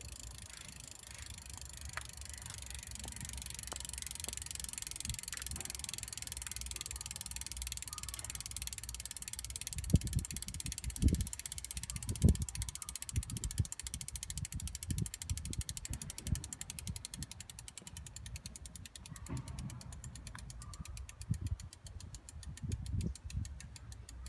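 Shimano Dura-Ace C24 rear hub freewheeling as the wheel spins: a rapid ticking of the freehub ratchet that slows as the wheel coasts down. Several dull low thumps come about halfway through, and a few more near the end.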